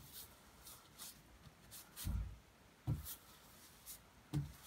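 A hand brushing dried dirt and debris off the face of an old sign, making short scratchy strokes about every half second. There are dull thumps about two, three and four and a half seconds in.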